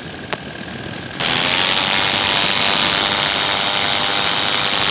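Paramotor engine and propeller running steadily in flight, cutting in loud and sudden about a second in after a single click.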